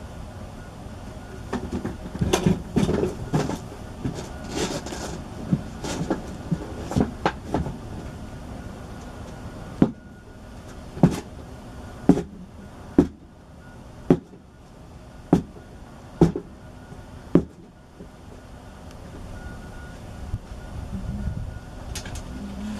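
A series of sharp knocks or taps: a cluster of quick, uneven ones in the first third, then single knocks about once a second for several seconds.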